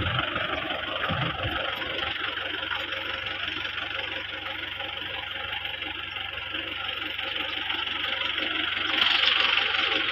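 Farm tractor's engine running steadily while it pulls a spring-tine cultivator through dry soil, a little louder near the end.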